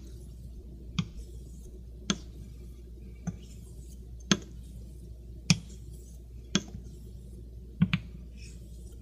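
A 15/16" Greaves near-wedge straight razor with a taped spine being honed on a wet Shapton Pro waterstone to set the bevel and grind out chips. A light click about once a second as the blade turns over on its spine at the end of each stroke, two in quick succession near the end.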